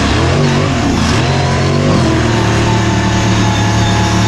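Lifted mud truck's engine revving hard, its pitch rising and falling over the first couple of seconds, then holding steady at high revs.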